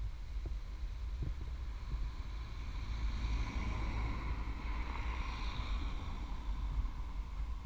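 Wind rumbling on the microphone of a moving car, with road noise; a hiss swells for a few seconds beginning about three seconds in.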